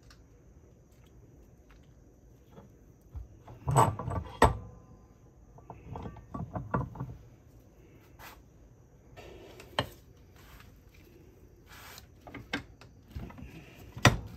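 Metal parts of a hydraulic steering cylinder knocking and clattering as the chrome rod and piston are handled at a workbench. There is a burst of clatter about four seconds in, scattered clicks and rattles after it, and a sharp knock near the end.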